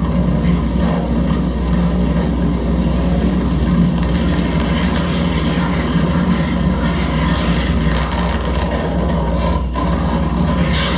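Live electronic noise music from a tabletop rig of effects and synth boxes: a loud, dense wall of noise over a steady low drone, with no beat or melody.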